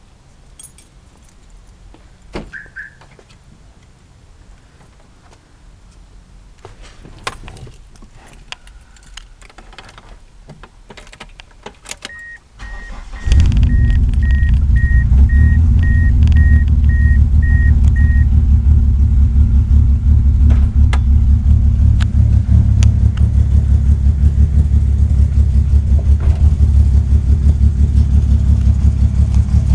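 Faint clicks and key handling, then a dashboard warning chime beeping repeatedly as the 1998 Mitsubishi Eclipse RS engine starts about halfway through. The engine then idles with a steady, regular pulsing knock, which the owner thinks comes from the transmission.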